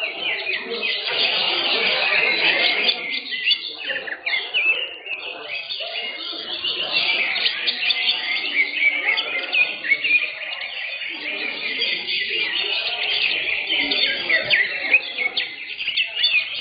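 Several caged greater green leafbirds (cucak hijau) singing at once in a contest, a dense, continuous chatter of rapid high chirps and whistles.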